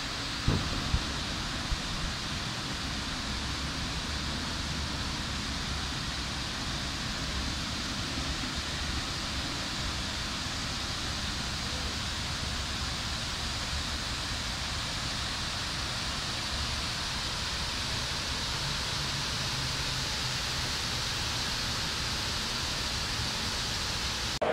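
Steady rush of water cascading down the walls of the 9/11 Memorial's reflecting pool, with a few brief knocks in the first two seconds.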